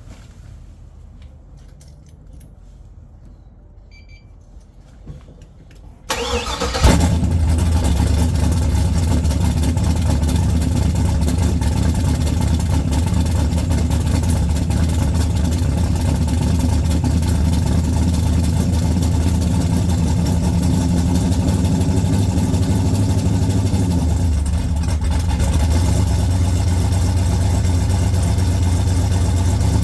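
Turbocharged car engine cranking and catching about six seconds in, briefly flaring up, then settling into a steady idle.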